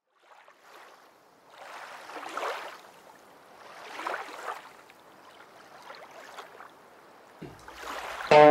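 Water washing in slow swells, rising and falling every couple of seconds like small waves lapping. Near the end, an electric guitar and drum-kit instrumental starts loudly.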